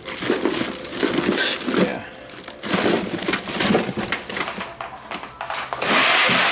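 Rustling and crinkling of packaging and handled items as a box is rummaged through, in irregular bursts, with a longer, louder rustle near the end.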